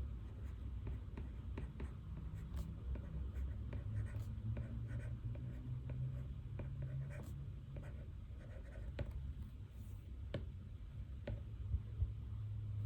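Pen writing on paper, a run of short scratching strokes and small taps as notes are written by hand, over a steady low room hum.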